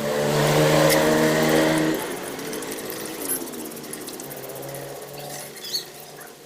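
A small electric motor, such as a power tool's, running with a steady hum: loud for about two seconds, then easing off, with a second short run about five seconds in.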